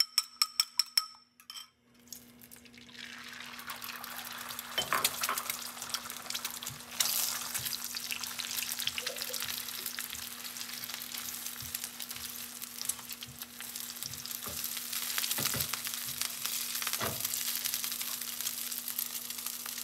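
A fork beating egg whites against a ceramic bowl in rapid clinks, stopping about a second in. Then egg whites sizzle steadily as they fry in hot oil in a pan, with a few knocks of the spatula against the pan.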